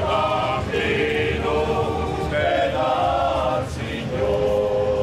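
A choir singing a slow song in long held notes, with several voices together.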